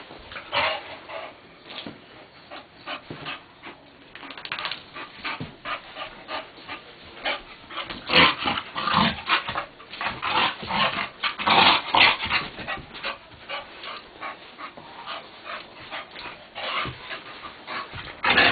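A bulldog breathing hard in quick, uneven puffs as it play-wrestles with a person, busiest and loudest in the middle stretch.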